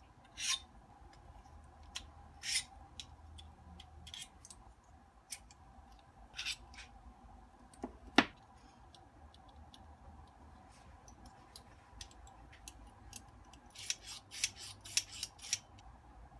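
Metal camera rod-riser parts being taken apart by hand: scattered light clicks and knocks as the baseplate, riser block and rods are handled and set down, with one sharp click about eight seconds in and a quick run of small clicks near the end. A faint steady hum sits underneath.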